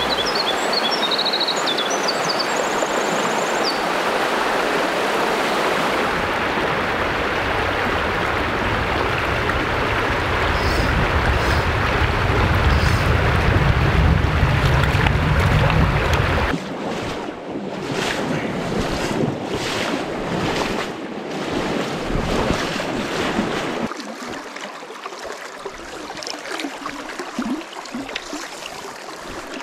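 Rushing river water, a steady loud rush that drops in level abruptly about 16 seconds in and again about 24 seconds in. A few faint high chirps sound near the start.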